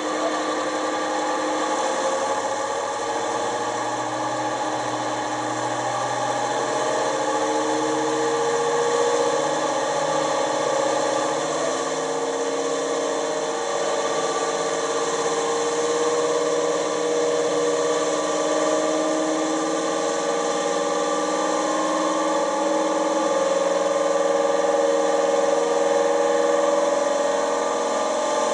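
Sound-fitted OO gauge Class 55 Deltic model playing its ESU LokSound recording of the twin Napier Deltic engines running, heard through the model's small speaker. The engine note runs on without a break, its pitch drifting slowly up and down.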